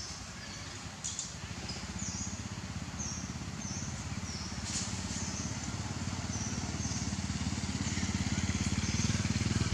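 A motor engine running with a low, rapid pulse, growing steadily louder. Short high chirps repeat above it about once or twice a second.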